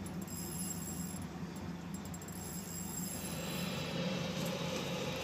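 Steady low hum of the charter boat's engines idling, with a broad hiss swelling about three seconds in.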